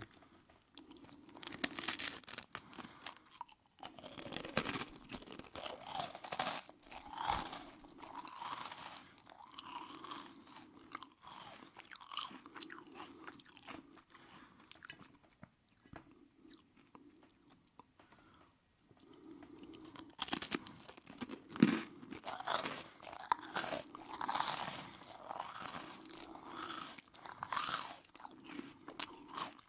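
Close-miked chewing of aubergines cooked in sunflower oil, with many small wet mouth clicks. It quietens for a few seconds about halfway through, then picks up again.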